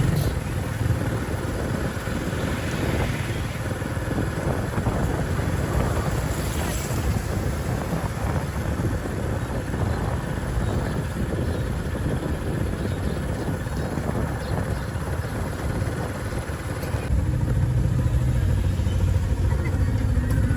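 Steady street traffic noise with vehicle engines. About seventeen seconds in, a low engine hum gets louder.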